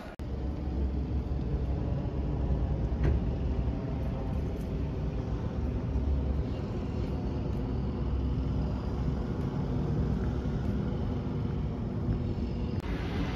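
Outdoor ambience: a steady low rumble of distant road traffic and wind on the microphone, with a single click about three seconds in.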